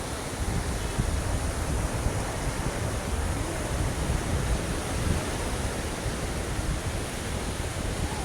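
Ocean surf: waves breaking and washing in as a steady, continuous rush of water, heaviest in the low rumble.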